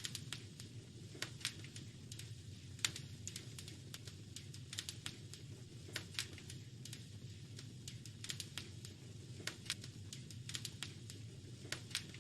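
Wood fire in a fireplace crackling, with sharp irregular pops and snaps several times a second over a steady low rumble.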